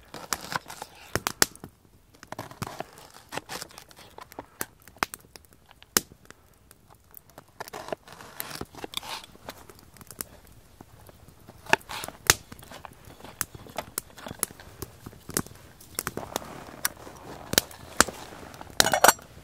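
Irregular sharp pops and crackles from a wood fire in a folding steel camp stove, along with a knife slicing onion on a cutting board.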